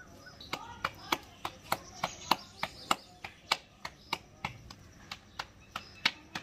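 Hands slapping a ball of paratha dough flat between the palms, patting it out in a steady rhythm of about three slaps a second.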